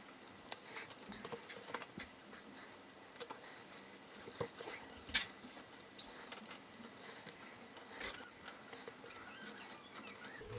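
Faint rustling and scattered light clicks of hands working a woven newspaper-tube craft piece, tucking in and gluing tube ends, with one sharper click about five seconds in.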